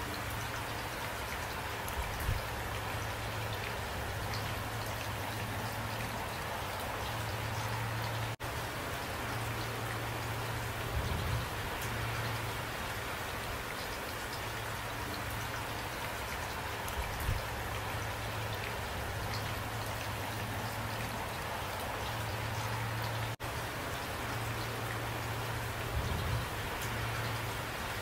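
Steady heavy rain falling and pattering on surfaces, with four soft low thumps spread through it.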